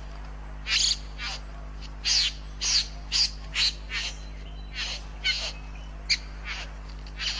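A bird calling over and over in short, sharp notes, each sweeping downward in pitch, one to three a second at an uneven pace, over a faint low steady hum.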